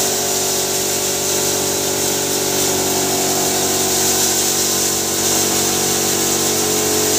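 Electric maize-grinding hammer mill (bharda machine) with its blower and cyclone running steadily: a constant machine hum with a few steady tones over a loud, high hiss of rushing air.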